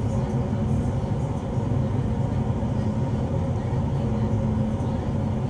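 Laboratory fume hood's exhaust fan and rushing airflow running: a steady drone with a low hum.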